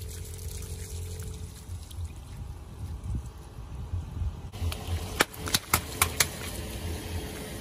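Water trickling and splashing from burst water-filled long balloons over a steady low hum from the car. About five seconds in, the car's tyre rolls over the balloons and five sharp pops come in about a second as they burst.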